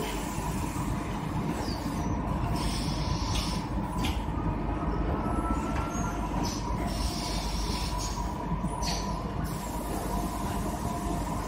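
Battery-module assembly-line machinery at a robotic laser-welding station: a steady low hum with two faint steady tones, and a high hiss that comes and goes three times.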